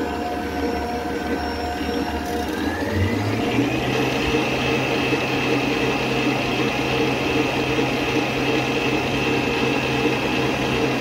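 Stand mixer running, its wire whisk beating egg-and-sugar cake batter in a steel bowl. The motor's pitch rises about three seconds in as the speed goes up, then holds steady.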